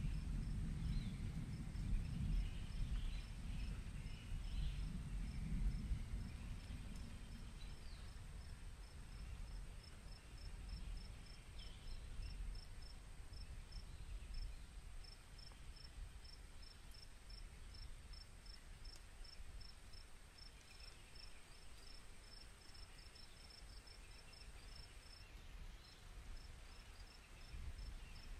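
A cricket chirping in an even, steady rhythm of high chirps, over a low rumble that is strongest in the first several seconds and then fades.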